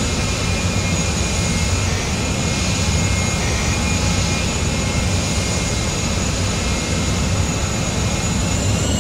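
Airbus A380's jet engines running steadily: a loud rumble under a steady high whine.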